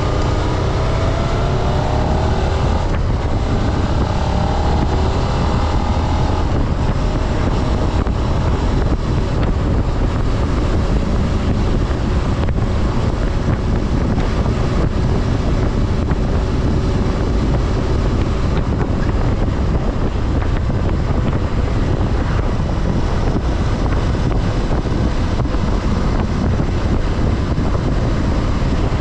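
Suzuki SV650's 645 cc V-twin running on its stock exhaust while riding, rising in pitch over the first few seconds as it pulls through the revs. After that a steady wind rush on the microphone mostly covers the engine.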